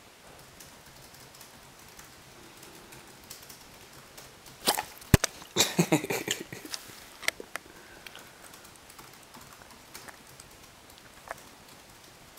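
Close-up knocks and scuffs from the camera being jostled and shifted by the dog: a sharp knock about five seconds in, followed by a quick cluster of knocks and rubbing. Faint computer keyboard typing in the background.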